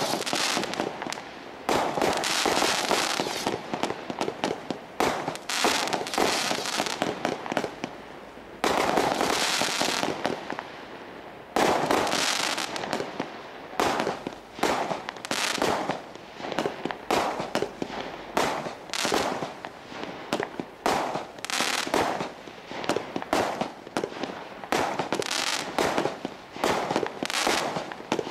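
Diamond Fireworks Imperial 142-shot barrage cake firing: a fast, irregular run of shot launches and aerial bursts, with two longer stretches of dense crackling about nine and twelve seconds in.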